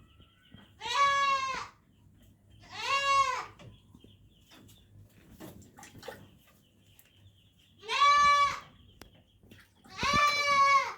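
Young goat kid with flu bleating four times, each call high-pitched and under a second long, while mucus is being cleaned from its nose.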